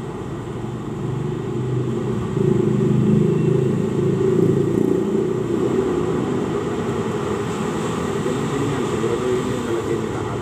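A low steady rumble, louder from about two seconds in until about five seconds in.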